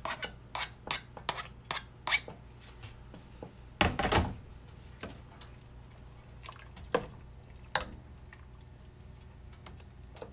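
A spoon tapping and scraping chopped onion and celery off a plastic cutting board into a stock pot of water, with a run of quick taps, then a louder clatter about four seconds in and a few scattered knocks of the spoon against the pot as the vegetables are stirred in.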